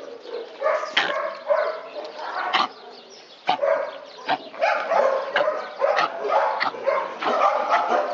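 Several dogs whining and yipping, with short high calls overlapping one another throughout and a few sharp clicks among them.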